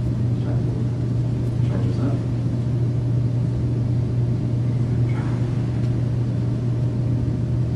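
A steady low hum that does not change, with faint, indistinct voice sounds now and then.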